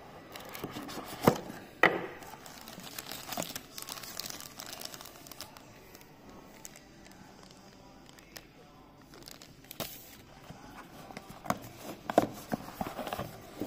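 Clear plastic wrapping crinkling as it is handled and pulled off a cardboard sunglasses box. Two sharp knocks of the box being handled come about a second and two seconds in and are the loudest sounds. A cluster of clicks and taps comes near the end as the box is opened.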